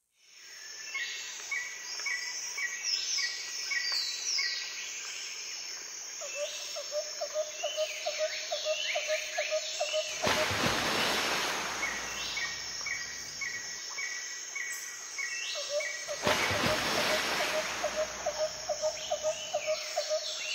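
Nature-ambience background track: birds calling over and over, and fast runs of chirping in two stretches. Two loud rushing swells come in, the first about half-way and the second some six seconds later.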